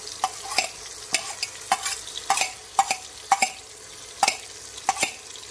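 Metal spoon stirring chopped onions, tomatoes and green chillies frying in oil in a large metal pot. It clinks against the pot about twice a second over a steady sizzle.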